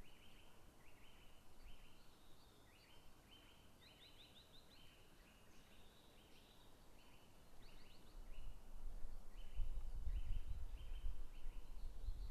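Black woodpecker calling: runs of short, evenly repeated notes, about two to three a second, broken by brief pauses. A low rumble comes in about two-thirds of the way through and is louder than the calls.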